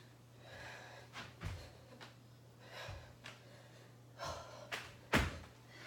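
A woman breathing hard and exhaling sharply mid-exercise, with several dull thuds on the exercise mat from dumbbells and feet as she works through man makers; the loudest thud comes near the end.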